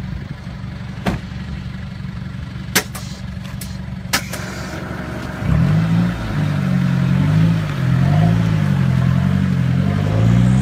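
Lowered pickup truck's engine idling steadily, with a few sharp knocks as the driver's door is shut. About halfway through, the engine revs up and the truck pulls away, its pitch rising and falling with the throttle.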